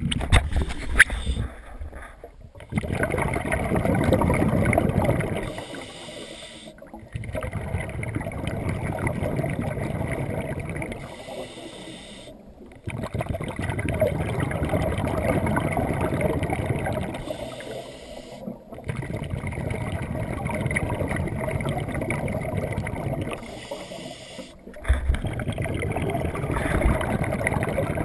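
Scuba diver breathing through a regulator underwater: long bubbly rushes of exhaled air, repeating about every six seconds with short quieter gaps between breaths.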